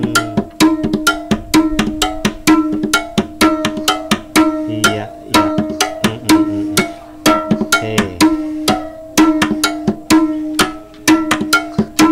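Teganing, a Gayo bamboo tube zither, struck in a quick steady rhythm of about four strikes a second, with a pitched ringing tone and recurring low thuds, as one instrument plays the gong, memong and gegedem drum parts together.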